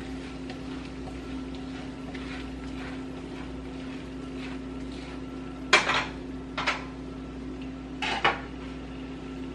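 A utensil stirring and scraping in a saucepan of cheese sauce that has started to scorch on the bottom, with a few sharp knocks of the utensil against the pan in the second half, over a steady low hum.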